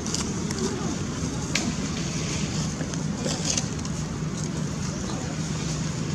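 Steady low rumbling background noise with a faint hum running under it and a few faint ticks.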